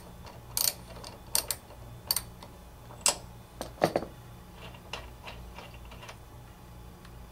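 Irregular sharp metallic clicks and taps, about a dozen and most in the first four seconds, from a spark plug wrench working a spark plug out of a lawn mower engine's cylinder head. A faint steady low hum lies under them.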